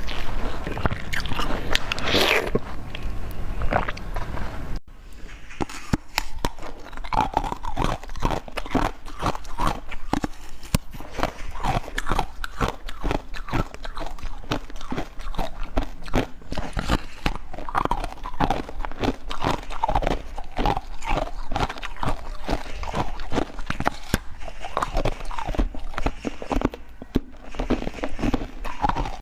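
Close-miked eating: crisp, crunchy bites and chewing of frozen or crunchy dessert, many quick crunches in a row, with an abrupt break about five seconds in.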